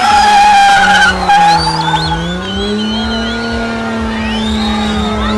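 BMW sedans spinning donuts: tyres squeal and warble over high-revving engines, the engine note dipping about two seconds in and climbing back up.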